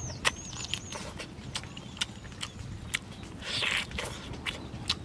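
Close-miked eating of roast duck: irregular wet lip-smacks and mouth clicks as meat is chewed and pulled off the bone, with a short slurp or suck about three and a half seconds in.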